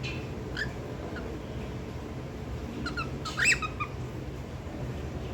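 Pet cockatiel giving a couple of faint short chirps, then a louder call about three seconds in, with quick notes that sweep up in pitch.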